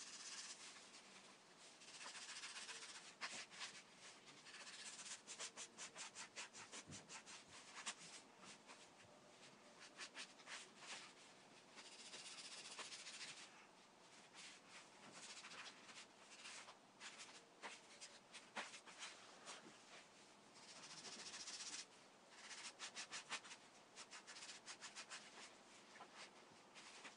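Faint, rapid scratching of a Mr. Sketch felt-tip marker scribbling back and forth on a sheet of paper, sped up in fast motion.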